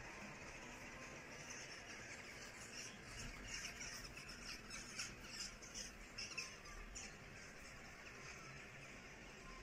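A large flock of birds calling as it flies overhead: many short, high calls overlap, busiest from about a second and a half in, thinning out after about seven seconds.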